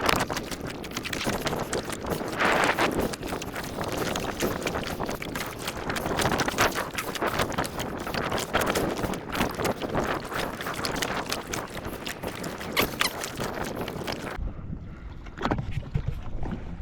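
Wind rushing over the microphone with water splashing against a small boat, a steady crackling hiss. About fourteen seconds in it changes abruptly to a duller, quieter sound of water against the hull.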